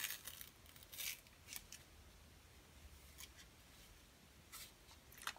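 A few faint, short, crisp rustles and clicks, spaced irregularly, from paper and craft supplies being handled at a desk.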